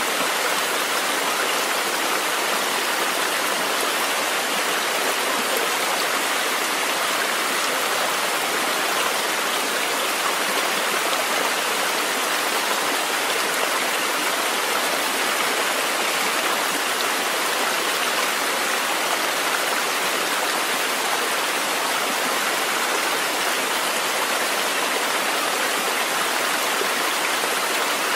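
Steady, unbroken rushing of running water, a stream-sounds recording, with no single splashes or drips standing out.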